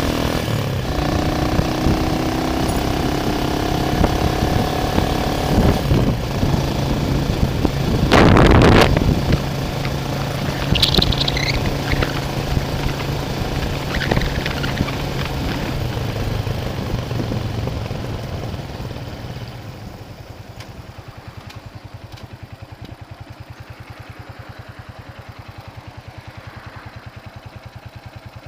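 A vehicle engine running, with a brief loud rush about eight seconds in. From about twenty seconds it drops to a quieter, steady idle with an even pulse.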